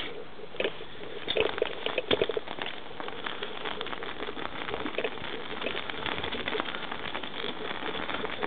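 Bicycle tyres rolling over snow, a steady crunching noise full of irregular crackles and clicks.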